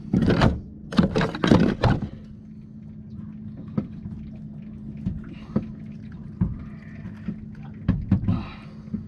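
Boat engine idling with a steady low hum, under scattered clicks and knocks of handling; a few loud rustling bursts in the first two seconds.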